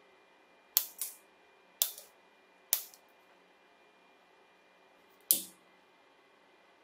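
Plastic cable tie tails snipped off: sharp cutting clicks in three groups about a second apart. About five seconds in, a disposable lighter is struck once and lights.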